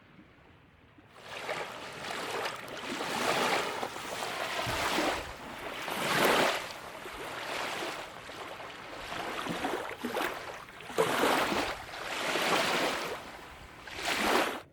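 Waves washing onto the lake shore, a rushing hiss that swells and fades every second or two. It starts abruptly about a second in and stops abruptly near the end.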